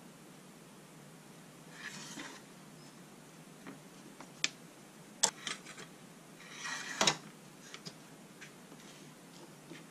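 A boxwood-and-brass folding rule handled on a cutting mat: the wood rustles as it slides over the mat, and the brass joints give a scatter of sharp clicks and ticks, the loudest two about five and seven seconds in.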